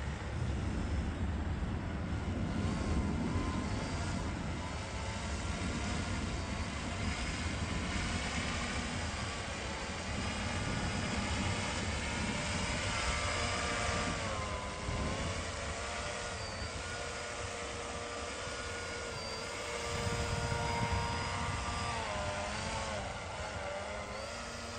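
Electric motor and propeller of a Ripmax WOT 4 Mk2 Foam-E radio-controlled plane whining in flight, the pitch rising and falling as the throttle changes, over a steady low rumble.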